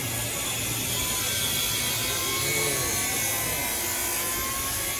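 Sawmill machinery running steadily, with a faint high whine over the noise.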